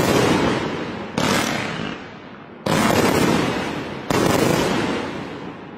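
A 208-shot fireworks cake firing its last shots: sharp bangs about every second and a half, each trailing off over a second or so, three in all with the last about four seconds in, after which the sound fades away.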